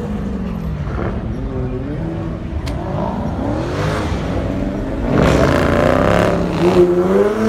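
Car engines running and revving, their pitch rising and falling, getting louder about five seconds in.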